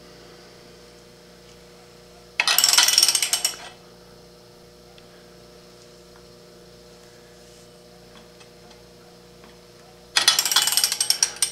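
Two bursts of rapid metallic ratchet clicking, each about a second and a half long, one a couple of seconds in and one near the end, from the long wrench turning the Chrysler 383's crankshaft by hand. A steady electrical hum runs underneath.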